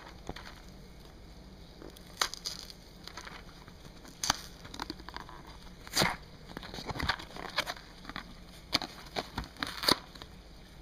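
Cardboard and paper packaging being handled and torn: irregular crackles, crinkles and sharp snaps, a dozen or so, the loudest about six and ten seconds in.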